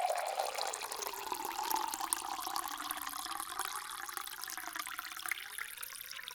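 Water pouring in a continuous stream and splashing into a container.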